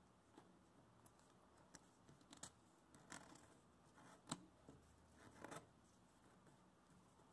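Faint crackles and rustles of a sheet of printer paper being folded and creased by hand, in a handful of short bursts with the sharpest crinkle a little past the middle.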